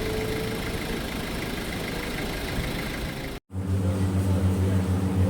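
A vehicle engine running, heard as a broad noisy rumble that cuts abruptly about three and a half seconds in to a steadier, louder low engine hum with a slight pulsing beat.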